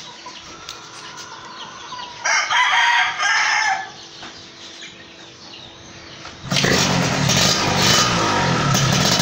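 A rooster crows once, for about a second and a half, a couple of seconds in. About six and a half seconds in, a loud steady sound cuts in suddenly and keeps going.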